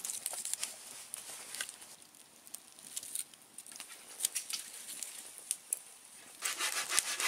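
Sparse light crackles and clicks as glowing campfire embers are picked up with a pair of sticks and set on a wooden block, with a louder rustling scrape near the end.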